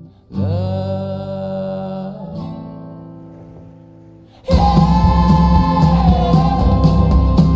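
Music: two long held chords, the second fading away, then a loud full band comes in about four and a half seconds in.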